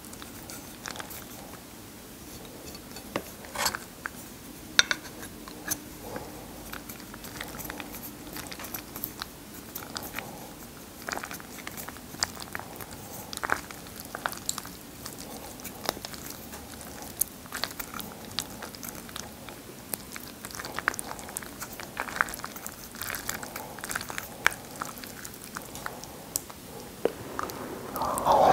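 Metal fork and spoon working through creamy carbonara spaghetti on a wooden tray: soft sticky squishes of the noodles and many scattered light clicks of the utensils. Near the end, a louder slurp of noodles being sucked into the mouth begins.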